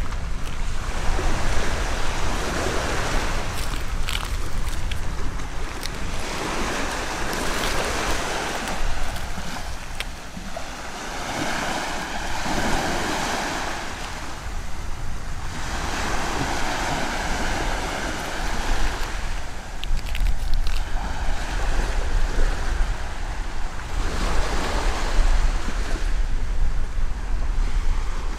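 Black Sea waves breaking and washing up on the beach, the surf swelling and fading every few seconds, with wind rumbling on the microphone.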